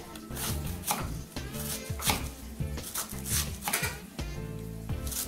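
Kitchen knife slicing a red onion on a wooden cutting board: a series of crisp cuts, each ending in a tap of the blade on the board, at an even pace of roughly two a second.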